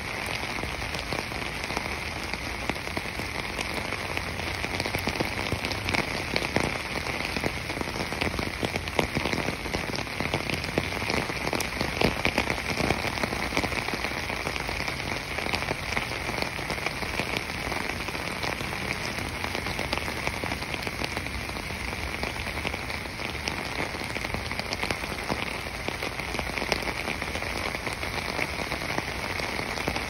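Steady rain, dense with the patter of many small drops, over a continuous high hiss.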